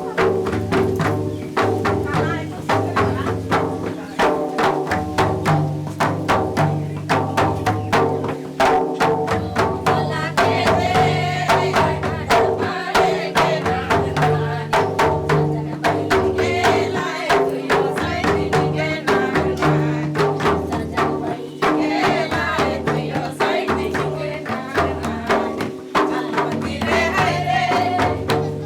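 Background music with a steady percussion beat over sustained low notes, with a melody line rising above it in places.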